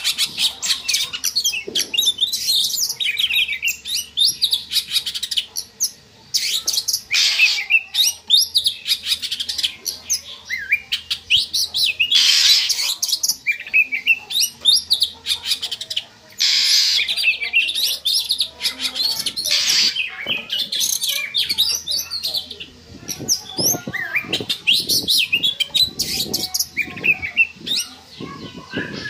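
Oriental magpie-robin (kacer) mating song: a fast, unbroken run of varied whistles and chirps, broken now and then by harsh rasping notes and, near the end, scratchy clicking calls.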